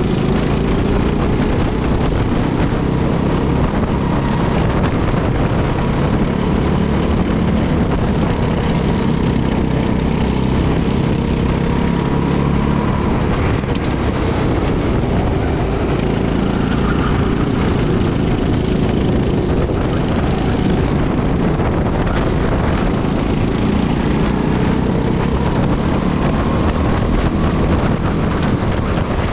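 Go-kart engine running at racing speed, heard from on board the kart with wind buffeting the microphone; the engine note climbs slowly in places as the kart accelerates.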